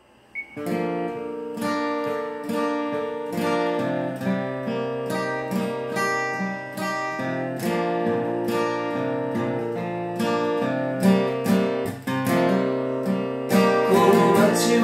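Steel-string acoustic guitar playing a song's instrumental intro: chords strummed in a steady rhythm of a few strokes a second, starting about half a second in.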